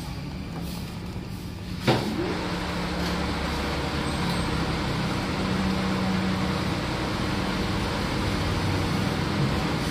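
A motor vehicle engine running steadily. There is one sharp knock about two seconds in, after which the engine noise grows somewhat louder and stays steady.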